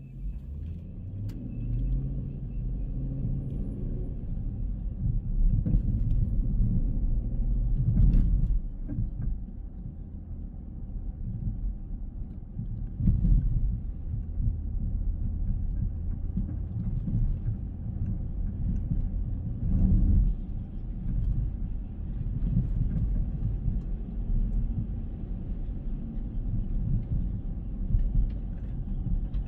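Car driving: a steady low road and engine rumble, with a few louder thumps about eight, thirteen and twenty seconds in.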